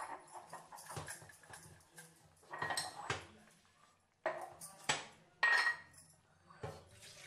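Metal kitchenware clinking and clattering against a pan in several short bursts, over a faint low steady hum.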